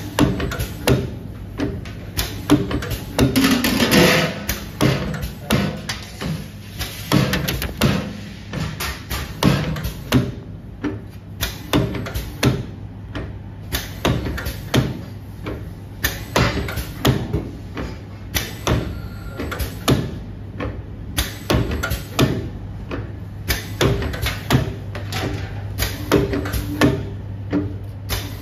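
Nicebaker wire-cut cookie depositor running: a steady machine hum with repeated knocks about once a second as the depositing head cycles and drops rounds of dough onto the tray.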